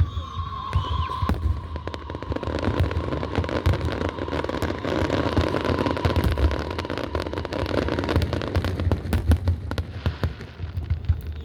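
Fireworks display: a continuous barrage of bangs and rapid crackling pops, with a steady high tone strongest in the first second or so.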